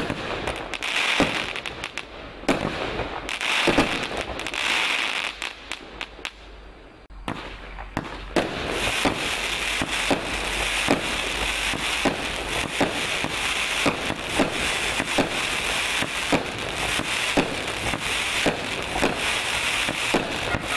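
Lesli Chain Smoker consumer firework battery firing: shots launch one after another, with red stars and crackling stars bursting. There is a short lull about a third of the way in, then a steady run of shots at about two a second over continuous crackling.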